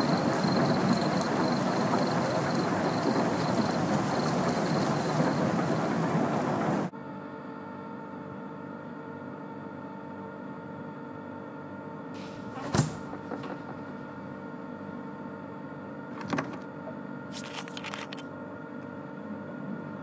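Heavy rain falling steadily, which cuts off abruptly about seven seconds in. A quieter steady hum follows, broken by a few sharp clicks and knocks.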